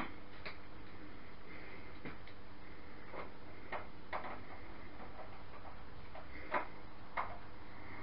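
A few scattered light clicks and taps from a screwdriver and small case parts being handled during PC assembly, over a faint steady hum.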